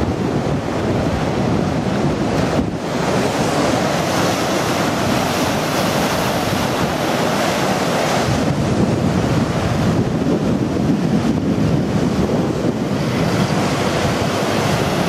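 Storm-surge sea surging over and against a sea wall at high tide: a continuous loud rush of churning, breaking surf, with wind buffeting the microphone.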